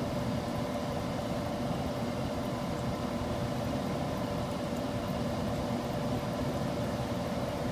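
Electric air handler running in emergency heat: a steady rushing hum with a faint, constant tone that does not change.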